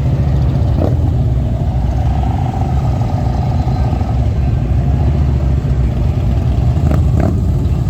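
Steady low rumble of car engines and street traffic, with a few brief clicks, one about a second in and two near the end.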